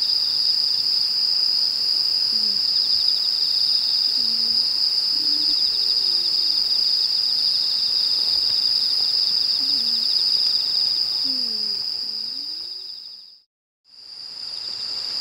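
Night insects chirping in a steady, high-pitched chorus, with a faint pulsing trill beneath it. The sound cuts to silence for a moment near the end and then comes back.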